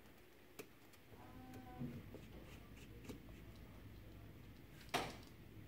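Faint clicks and ticks of a precision screwdriver backing tri-wing screws out of an iPhone 7's metal LCD backplate, with one sharper click about five seconds in.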